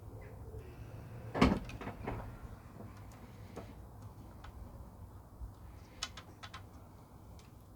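Hand-handling knocks and light clicks as a replacement charging port and its cable are pushed through the opening in an e-bike frame: one sharp knock about a second and a half in, then scattered small clicks.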